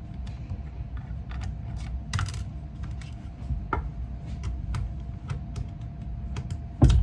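Light clicks and taps of rifle parts being handled during disassembly, with a louder knock near the end.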